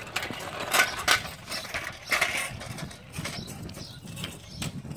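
Child's tricycle rolling along a concrete sidewalk, its hard wheels and frame rattling and creaking in an irregular run of clicks and knocks.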